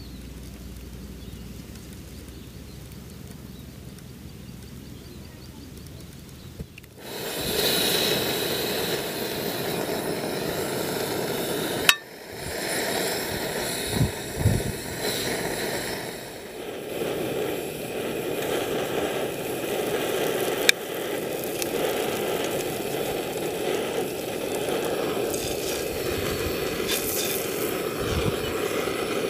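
Food frying in a pan on a portable camping stove, starting suddenly about seven seconds in, with a few sharp clinks and scrapes of utensils against the pan.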